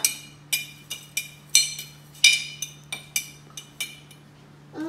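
A metal spoon clinking against the rim of a glass jar, about a dozen irregular taps with a short bright ring, as sugar is knocked off into the jar.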